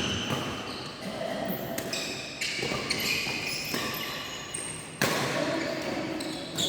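Badminton rally: rackets hitting the shuttlecock in sharp smacks about every one to one and a half seconds, the hardest hit about five seconds in, with short high squeaks in between.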